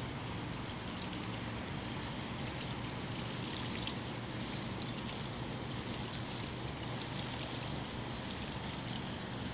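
Steady low drone of a distant motorboat engine, with water lapping and small splashes at the lake's edge.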